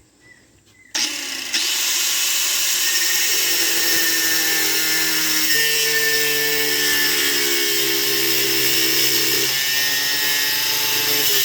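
Power tool starting up about a second in and then running steadily, cutting through deer antler with a blade, its whine shifting in pitch partway through as the load changes.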